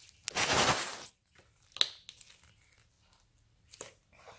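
Fluffy slime squeezed and kneaded by hand in a plastic bowl, making quiet crunchy crackling squishes. There is one longer squish about half a second in, then two short sharp crackles near two and four seconds in.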